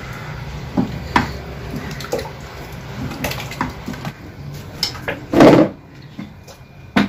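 Wooden stick stirring thick, hot wheat-starch batter in a large aluminium pot: wet sloshing and slapping, with several short knocks of the stick against the pot and the loudest slap about five and a half seconds in. The batter is thickening as it cooks and is stiff to stir.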